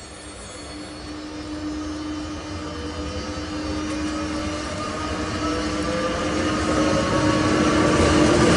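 Electric locomotive ES499.1001 (class 362.001) approaching with a train and growing steadily louder. Its whine rises slowly in pitch over a steady hum.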